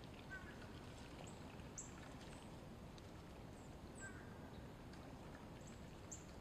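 Mallards dabbling for food in shallow water: faint soft splashing and sifting of bills in the water. Several short, high, falling chirps from small birds cut in through it.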